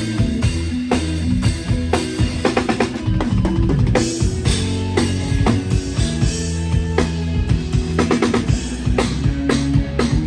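Tama Star Classic drum kit played live: a busy groove of kick, snare and rimshots with a quick fill of rapid strokes about three seconds in, over a sustained bass line.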